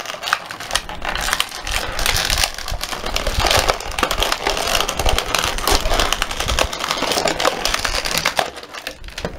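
Stiff plastic blister packaging crackling and clicking as a small toy figure is pried out of it, a dense, irregular run of crackles that thins out near the end.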